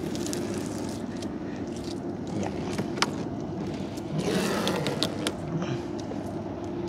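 Small river boat's motor running steadily, with a few sharp knocks and a brief rushing noise about four seconds in.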